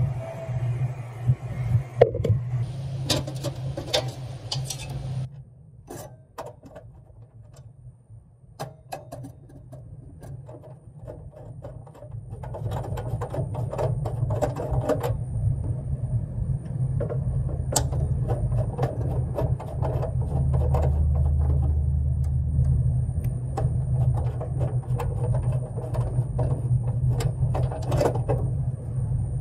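Scattered clicks and light metallic clinks of hand work on electrical service fittings, over a steady low rumble that drops away about five seconds in and returns from about twelve seconds.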